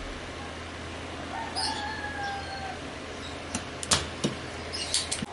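A drawn-out call, like a rooster crowing, about a second and a half in. Then a sharp snap about four seconds in, with a few lighter clicks: a spring-loaded desoldering pump firing to suck up molten solder from a circuit-board joint.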